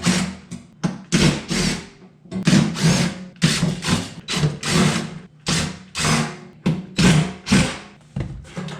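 Compressed-air gun fired in short, repeated blasts, about two a second, blowing dust off refrigerator condenser coils. A steady low hum runs underneath.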